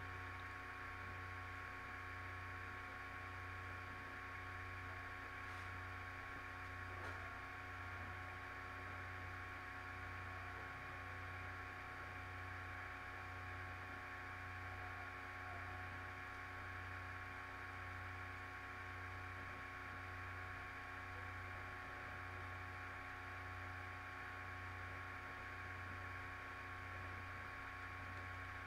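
Steady electrical hum with hiss: several held tones over a band of noise, and a low hum that pulses slowly and evenly. Two faint clicks about six and seven seconds in.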